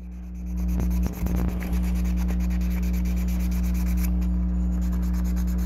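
Hand wet sanding of a primed resin model-kit part: wet sandpaper rubbing back and forth over the primer in quick, even strokes. A steady low hum runs underneath.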